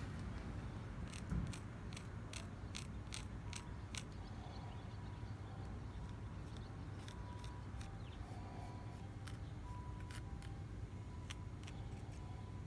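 A small knife working a bark-covered strip of wood by hand: about a second in, a quick run of sharp clicks comes at roughly four a second, then single clicks follow at scattered intervals.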